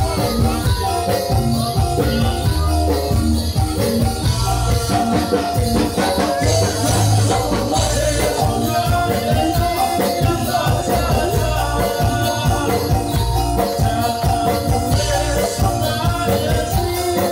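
Live Javanese music for a warok dance, loud and continuous: drum beats and a held instrumental tone under a fast, jingling, rattling percussion.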